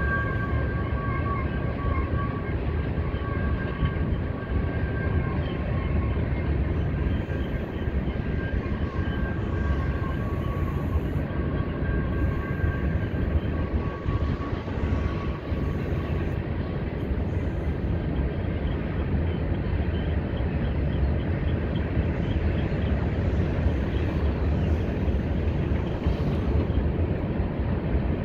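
Freight train cars rolling past on two parallel tracks: a steady rumble of wheels on rail, with a high, steady whine that fades out about halfway through.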